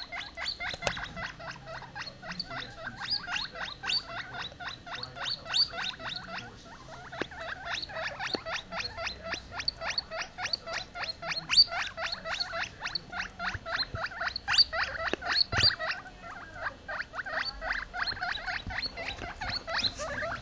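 Two baby US Teddy guinea pigs squealing in rapid short, high squeaks, several a second with hardly a break: the distress calls of young pups separated from their mother.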